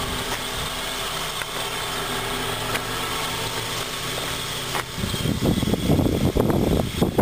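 2004 Honda Accord's 2.4-litre i-VTEC four-cylinder idling steadily. About five seconds in, a louder, uneven low buffeting on the microphone rises over it.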